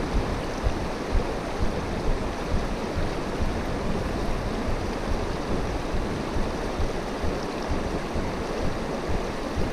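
Shallow mountain stream rushing over rocks in a steady rush of water, with an uneven low flutter underneath.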